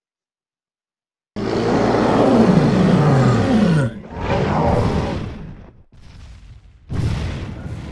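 Monster roar sound effects: after a silent first second, a long growling roar with a falling pitch, then a second, shorter roar, and a third beginning near the end.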